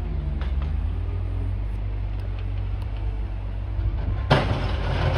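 Steady low engine rumble, with a sudden loud rush of noise starting about four seconds in and carrying on.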